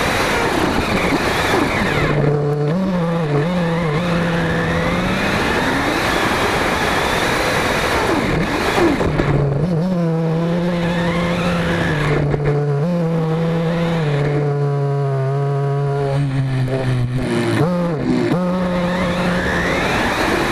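Kyosho Inferno RC buggy's engine heard on board. It revs high with a rush of tyres over dirt at the start, drops to a steady idle with a few short blips while the car sits still, and revs up again near the end.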